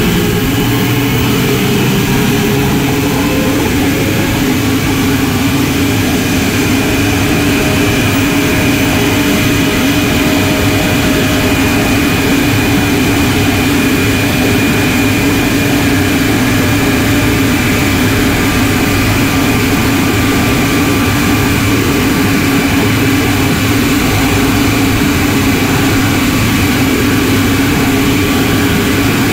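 Detroit Diesel Series 60 12.7-litre inline-six diesel and its variable-geometry turbocharger running under way, heard close up in the engine bay: a loud, steady drone with a thin high turbo whistle. The pitch rises slightly over the first few seconds, then holds steady.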